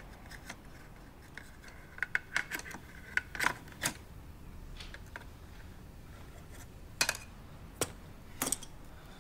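Pens rattling and clicking as they are picked out of a desk pen pot: a run of sharp clicks between about two and four seconds in, then three more single clicks near the end.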